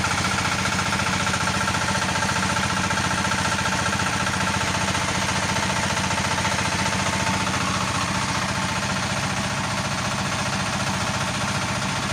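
Small single-cylinder diesel engine running steadily at a constant speed, driving a 3 kV generator. A thin high tone over the engine fades out about two-thirds of the way through.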